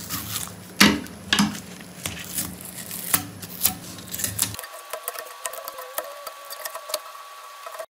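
Masking tape being peeled and torn off a metal knife blade: irregular crackling, crinkling and ripping, with a few louder tears in the first half, cutting off abruptly near the end.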